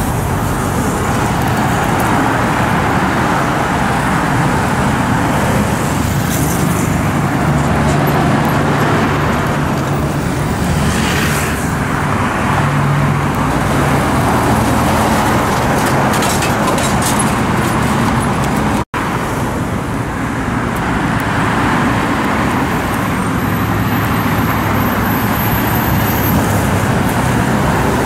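Busy multi-lane road traffic passing close by: trucks, a city bus, cars and motorcycles, a steady mix of engine and tyre noise. A low engine drone stands out in the middle, and the sound drops out for an instant about two-thirds of the way through.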